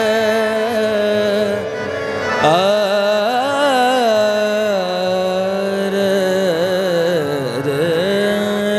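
A male singer's wordless, ornamented devotional abhang singing: long held notes gliding and wavering up and down, over a steady accompanying drone.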